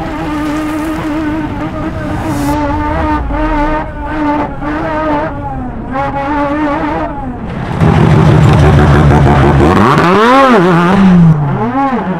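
Rotary engine of a stadium race truck running hard at high, steady revs. About eight seconds in it gets much louder, and near the end the pitch swings up and down twice as the engine is revved and eased off.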